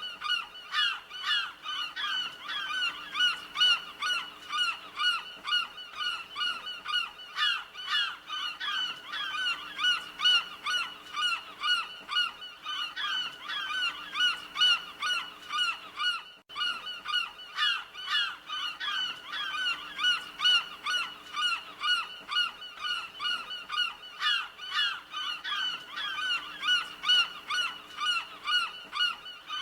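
Seagulls calling continuously: a dense run of short, repeated cries, a few each second, with a brief break about halfway through.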